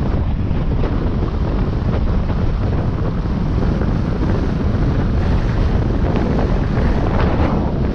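Wind rumbling on the microphone of a moving vehicle, a steady, loud, low rumble over road noise.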